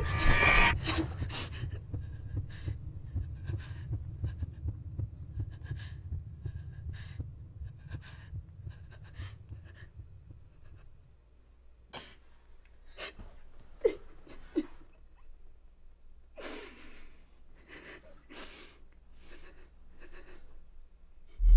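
A frightened girl's heavy breathing, in short shaky breaths repeated every half second or so, with a sharper catch of breath about 14 seconds in. A low rumble sits under the breathing for the first half and then fades out.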